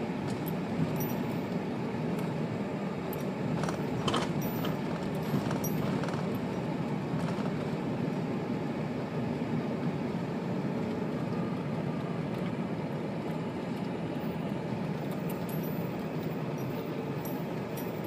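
Steady engine and tyre noise inside a vehicle's cab as it drives slowly over a dirt road, with a brief click about four seconds in.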